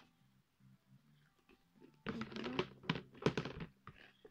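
Hands handling craft supplies in a clear plastic storage box: a busy burst of clicking, rattling and rustling that starts about two seconds in and lasts under two seconds.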